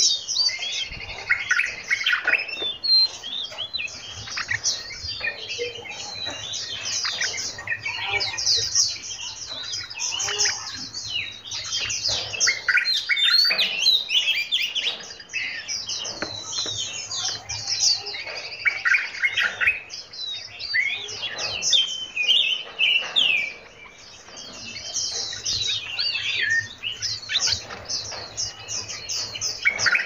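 Several songbirds chirping and singing over one another in a dense chorus of quick, high calls, with a brief lull a little past the three-quarter mark.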